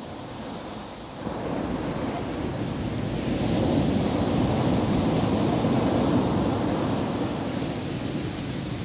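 Ocean surf breaking and washing up a pebble beach, a steady rush that swells about a second in, is loudest through the middle and eases off toward the end.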